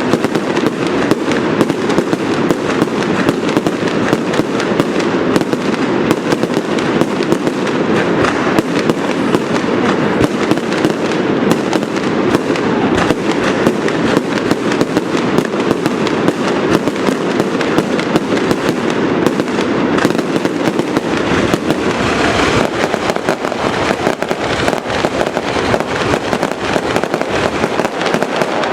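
Fireworks display going off in a dense, continuous barrage of rapid bangs and crackling, with heavier low booms about three-quarters of the way through.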